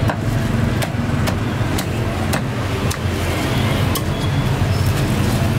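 Cleaver chopping roast duck on a thick round wooden chopping block: a series of sharp chops, about two a second, over a steady low rumble of street traffic.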